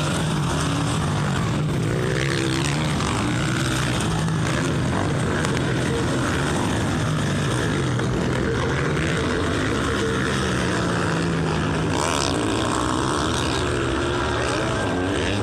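Motocross dirt bikes racing past on a dirt track, their engines revving up and down as riders work the throttle through the turns.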